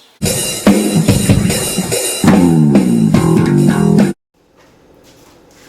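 Loud intro music with electric guitar, bass and drums, about four seconds long, cutting off abruptly, then faint room noise.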